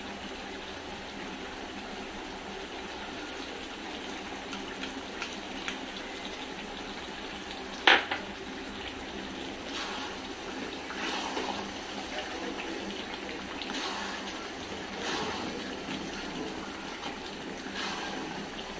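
Mutton curry cooking in a metal pan on a gas stove: a steady hiss, with one sharp knock about eight seconds in and then repeated scrapes of a wooden spatula stirring through the thick gravy.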